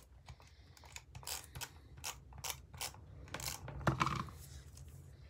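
Irregular light clicks and taps as small cardstock pieces are handled on a cutting mat and adhesive is put on their backs, with the loudest click about four seconds in.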